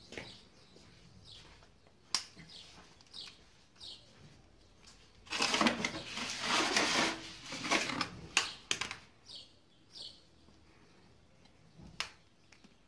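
Small birds chirping on and off, short falling chirps. About five seconds in comes a few seconds of loud rustling and knocking handling noise as the just-removed scooter carburetor is handled, with sharp clicks of metal parts.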